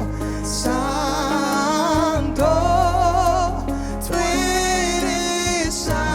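Live worship music: a singer holds long notes with vibrato over a band with a steady low bass.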